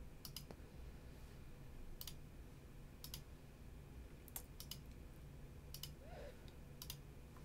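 Computer mouse button clicking: about eight faint, sharp clicks at uneven intervals, a few in quick pairs, over a low steady background hum.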